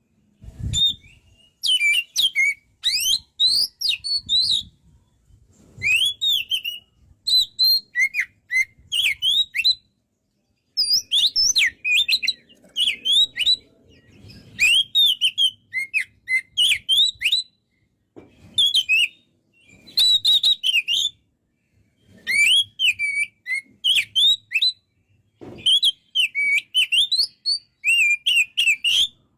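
Oriental magpie-robin (kacer) singing a varied song of quick whistles, slurred rising and falling notes and chirps, in phrases about a second long separated by short pauses. A low bump sounds about a second in.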